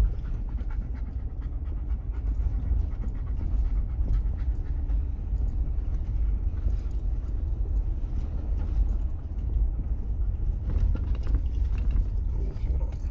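A dog panting inside a vehicle's cabin, over the steady low rumble of the vehicle crawling along a bumpy dirt trail, with scattered rattles and knocks.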